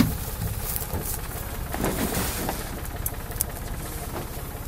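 Tractor engine idling steadily with an even low pulse, and a few light knocks of plastic harvest crates being handled.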